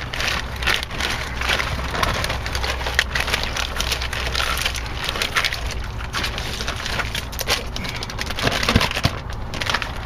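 Plastic bag of expanding foam crinkling and crackling irregularly as a gloved hand kneads and squeezes it.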